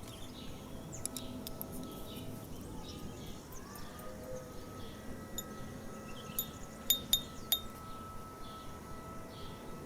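Metal chimes ringing: a sustained ringing tone, then four bright metallic strikes in quick succession over about a second, a little past the middle.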